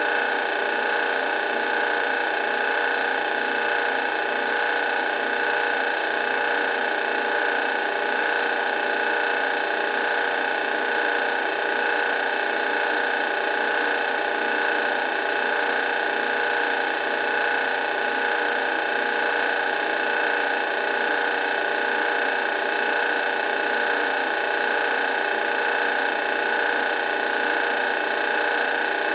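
Drill press running steadily, a carbide bit cutting into the steel slide of a Glock pistol, with a steady whine that does not change.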